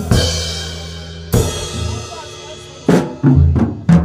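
Drum kit played with Sabian SBR cymbals: cymbal strikes with a long ringing wash over low drum strokes, one about every second and a half, then a quicker run of drum hits near the end.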